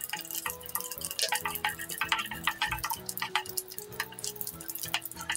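Cashew pieces crackling and sizzling in hot ghee in a frying pan, with many small, quick pops. Soft background music with slow, held notes plays underneath.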